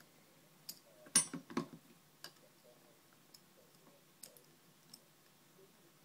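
Steel dimple pick tool going into the keyway of a Mul-T-Lock dimple padlock: a quick cluster of metallic clicks and scrapes about a second in, then a few light, scattered ticks as the tool is worked in the lock.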